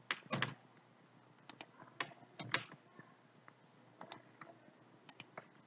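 Computer keyboard and mouse clicking: a dozen or so short, sharp clicks at irregular intervals, some in quick pairs.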